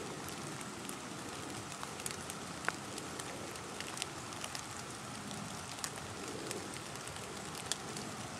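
Scattered water drops ticking irregularly on leaves and wet rock over a steady, faint outdoor hiss.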